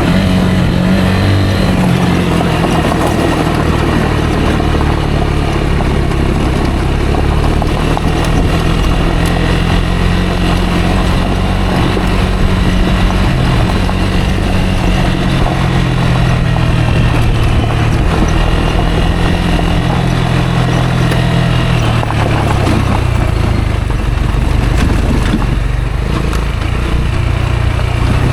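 Rieju Aventura 125's single-cylinder 125 cc engine running under way off-road, its note rising and falling with the throttle and settling lower in the last few seconds, over a steady rushing noise.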